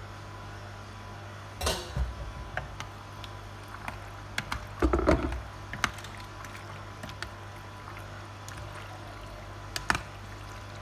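Spoon stirring macaroni salad in a metal bowl: light clinks and scrapes of the spoon on the metal, with wet squishing of the creamy pasta. There are louder bursts about two seconds in and around five seconds, over a steady low hum.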